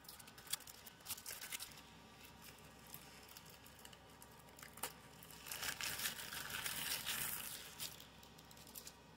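Cellophane wrapping being torn and peeled off a playing-card box: scattered small crackles and clicks at first, then a louder stretch of crinkling about five seconds in that lasts nearly three seconds.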